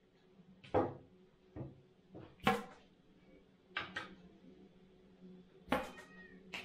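Sections of a multi-piece carbon travel spinning rod being pulled apart at their tight, spigot-free joints, each joint letting go with a pop like a cork drawn from a bottle. Several sharp pops and light knocks come about a second apart, the loudest about two and a half seconds in, some from sections being set down on the table.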